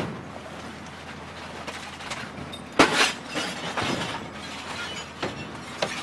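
A television set being crushed: continuous crunching with several sharp cracks of breaking glass and casing, the loudest crash about three seconds in.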